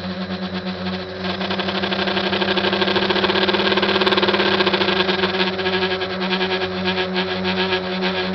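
SK450 quadcopter's four motors and propellers buzzing steadily in flight, with a fast flutter, heard from its onboard camera. About a second in the pitch rises and the buzz grows louder as the throttle comes up, then it eases off again about two-thirds of the way through.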